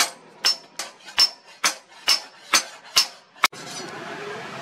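Hand-hammer blows on red-hot leaf-spring steel lying on an anvil, about two a second, each with a short metallic ring. About three and a half seconds in the blows stop and a steady rushing noise takes over.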